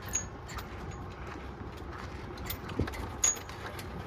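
A vehicle creeping onto a ferry: a steady low engine and road rumble with light rattles and squeaks, and two sharp knocks a little after halfway through.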